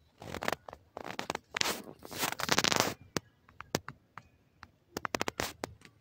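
A francolin pecking and scratching in dry, loose soil: scraping, scratchy rustles for the first few seconds, then a string of sharp pecking clicks, several in quick succession near the end.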